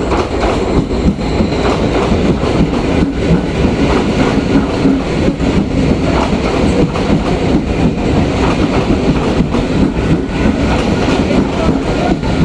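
Kolkata suburban electric local train (EMU) running, a steady loud rumble with the clatter of wheels over rail joints.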